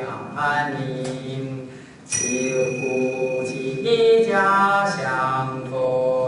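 A man's voice chanting Chinese Buddhist verses to a slow melody, with long held notes. About two seconds in, a high steady ringing tone sounds for nearly two seconds.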